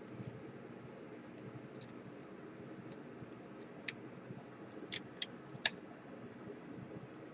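Scattered small, sharp clicks of laptop parts and small tools being handled during disassembly, with four louder clicks in the second half.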